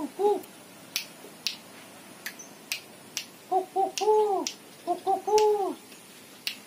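Female spotted dove cooing: two phrases in the middle, each of two short notes followed by a longer arched note, plus the tail of a phrase at the start. Sharp, short clicks are scattered between the coos.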